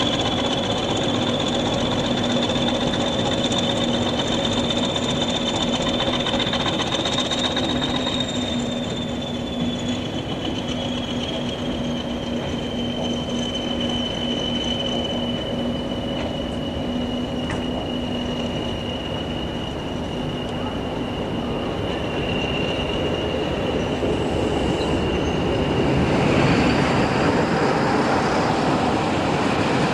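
A line of coupled diesel locomotives running light at slow speed: a long, high, steady wheel squeal that drifts slowly in pitch, over a low engine hum. Near the end a louder rushing noise builds as another train approaches.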